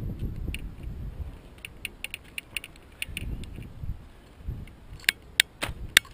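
Footsteps walking across grass, heard as dull low thuds, with a few sharp clicks near the end.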